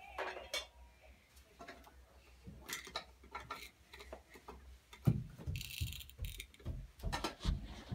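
Footsteps and light knocks on a carpeted staircase: scattered soft clicks at first, then from about five seconds in a quick run of dull thumps with a brief hiss.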